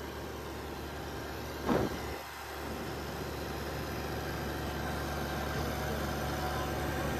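Mahindra Oja 2127 compact tractor's diesel engine running steadily while pulling a rotavator in creeper gear at a crawl. A brief thump comes a little under two seconds in, and the engine grows slightly louder toward the end.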